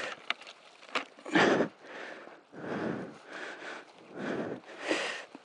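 Heavy breathing close to a helmet-mounted microphone, a rush of breath about every second from the exertion of hauling fallen branches, with a couple of sharp twig snaps near the start.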